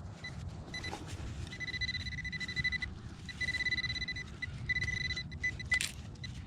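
Minelab Equinox metal detector with a 6-inch coil sounding its target tone: a steady high beep, broken into a couple of short beeps at first and then several longer ones, as the coil passes over a deep buried metal target. A sharp knock sounds near the end.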